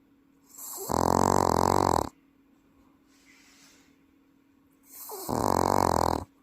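Welsh corgi snoring in its sleep: two long, loud, rattling snores about four seconds apart, deep enough to pass for an adult person snoring, with a faint breath between them.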